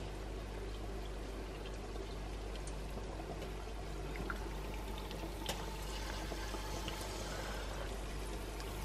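Battered chicken wings deep-frying in canola oil in a pan: a steady sizzle with scattered light crackles, getting a little fuller from about halfway through.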